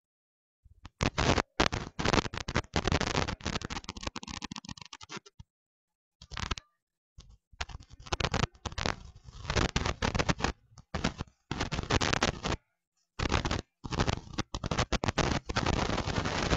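Harsh crackling, scratchy noise that keeps cutting out to dead silence and back, several times: a badly broken-up, distorted audio track.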